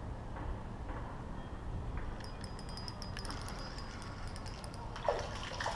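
A fishing reel being cranked in, a run of fast ticks with a thin high whine lasting about two and a half seconds, over a steady low background rumble. Near the end a sharp knock and a short rustle as the crappie comes up onto the wooden dock.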